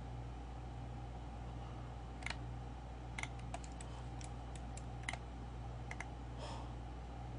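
A dozen or so short, sharp computer clicks, scattered unevenly from about two seconds in until a little past six, over a steady low hum.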